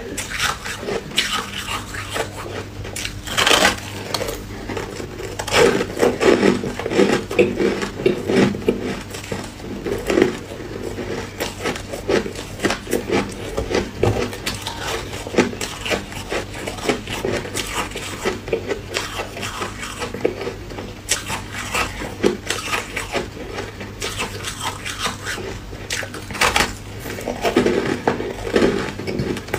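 Packed shaved ice with embedded ice cubes being bitten and chewed close to the microphone: a dense, irregular run of crisp crunches and crackles.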